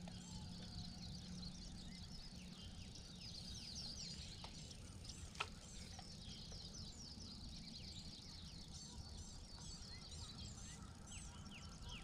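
Faint chorus of small birds singing, many short high chirps and trills overlapping without a pause, with a single light tick about five seconds in.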